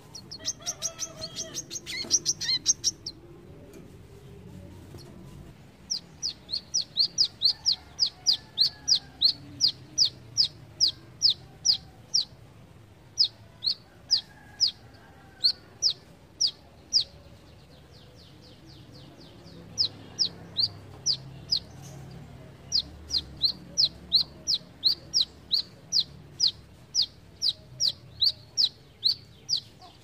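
Brown-throated sunbird (kolibri kelapa) singing. It opens with a rapid high twitter that stops about three seconds in. After a short pause it gives long runs of sharp, high, downward-slurred notes, about three a second, in several bouts with brief pauses between them.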